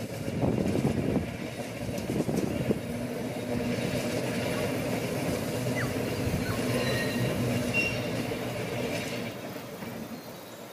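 Vintage electric tram running along the rails, a steady low rumble of wheels on track that fades near the end as it draws away.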